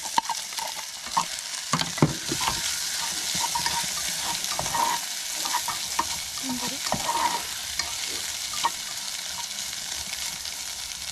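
Egg fried rice sizzling in a pan as it is stirred, with short scrapes and taps of the stirring utensil against the pan. The sizzle is strongest through the middle of the stretch.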